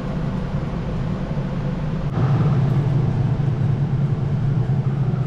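Portable spot cooler running: a steady hum with a rush of air, louder from about two seconds in.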